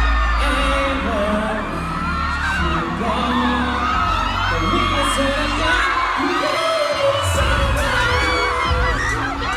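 Pop music with singing over a heavy bass line; the bass drops out for about a second partway through.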